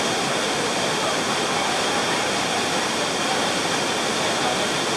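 Niagara's Horseshoe Falls: the steady, loud rush of a huge volume of water falling, with no breaks or changes.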